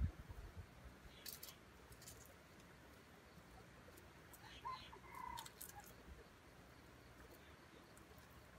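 Faint soft clucking of wild junglefowl: a few short notes about halfway through, over a quiet background with a few light ticks earlier on.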